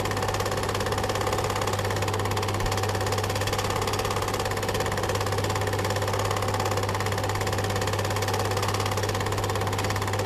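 Film projector running: a steady, fast, even clatter from the film transport over a constant low hum.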